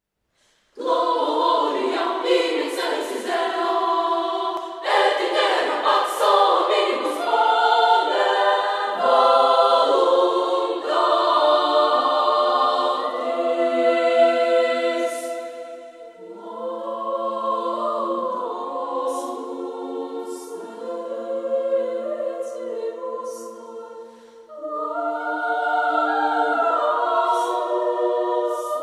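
Children's choir of girls singing together in several parts, starting about a second in and dropping briefly quieter twice in the second half.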